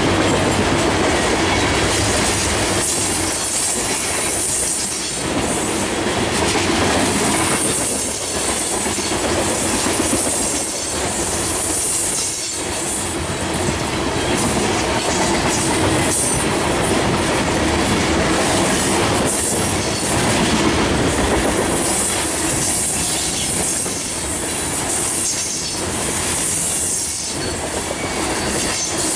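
Tank cars of a Canadian National freight train rolling past close by: a steady noise of steel wheels on rail, with a high squeal that comes and goes.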